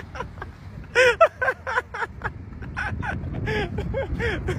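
A man's voice calling out in short sing-song syllables, twice, over a steady low rumble of wind and road noise from a moving vehicle.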